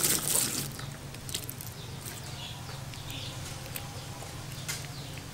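Crispy deep-fried frogs rustling and crackling as fingers pick through the pile, loudest in the first second, then a few light clicks over a steady low hum.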